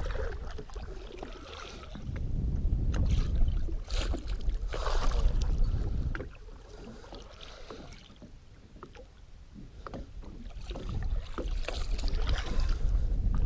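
Wind gusting over the microphone in two low rumbling swells, with water lapping at the boat's hull and scattered small clicks and knocks as a musky is played on a rod and reel.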